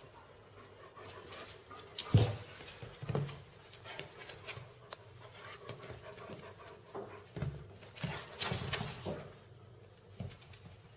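A chihuahua and a large dog at play, making a run of short, separate dog noises. The loudest comes about two seconds in, and a cluster follows around eight to nine seconds in.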